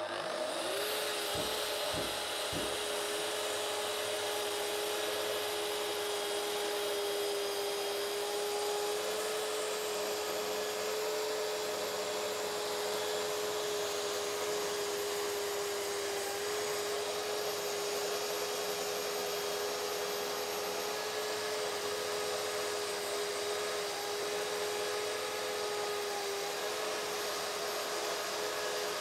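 Plunge track saw with a fine-tooth blade spinning up, then running at a steady pitch as it is pushed along a guide rail, ripping through solid beech at about half the board's depth. A dust extractor hums along with it.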